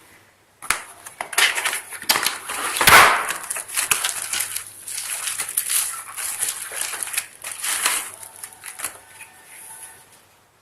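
Packaging being handled: rapid crackling and scraping of cardboard and plastic, loudest about three seconds in and dying away near the end.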